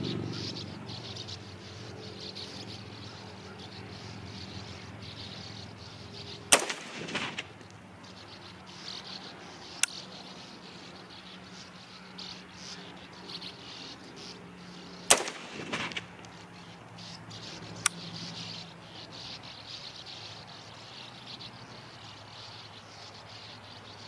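Two rifle shots from a 6.5 Grendel fired without a muzzle brake, about eight and a half seconds apart, each with a short echo rolling back from the hills. Fainter sharp cracks come a few seconds after each shot, over a steady buzz of insects.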